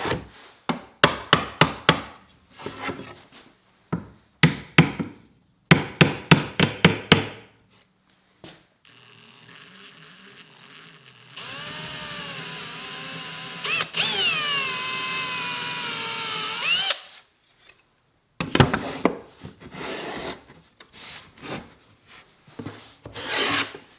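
Light taps and clicks of a steel undermount drawer slide being set against a plywood drawer to mark the pin hole. Then a cordless drill bores a 1/4-inch hole into the plywood for about eight seconds. Its whine grows louder partway through, and its pitch dips and recovers as the bit cuts. Further clicks of the slide being handled follow.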